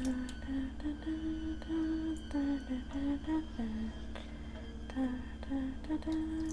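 A woman humming a slow, stepwise tune over a steady low drone, with faint light clicks of a spoon in a pot.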